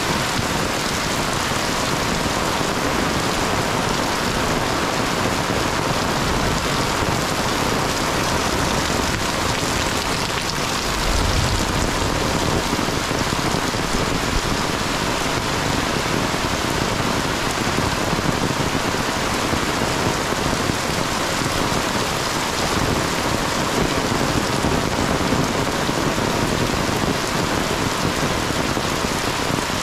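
Heavy rain pouring steadily onto a paved lane and the trees around it, a dense, even hiss with no let-up.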